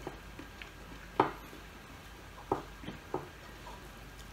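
A handful of short, sharp clicks and taps of fingers and food against a ceramic plate as rice and dried fish are gathered up by hand, the loudest a little over a second in.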